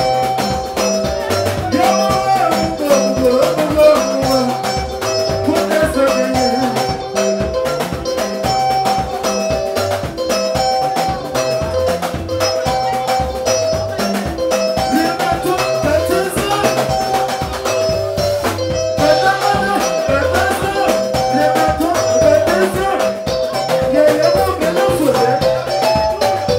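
Live soukous band playing: interlocking guitar lines over a steady bass and shaker and drum percussion, with some singing.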